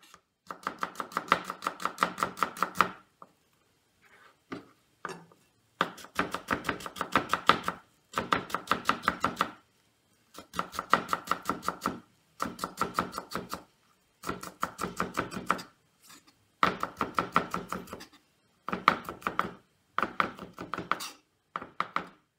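Onion being finely minced with a knife on a cutting board: rapid runs of chopping strokes, about eight a second, in bursts of one to three seconds with short pauses between.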